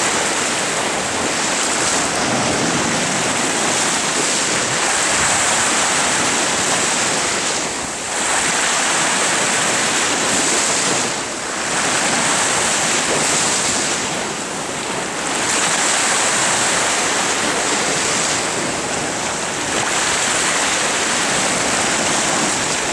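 Sea waves washing and surging, with wind buffeting the microphone: a steady loud rush with a few brief lulls.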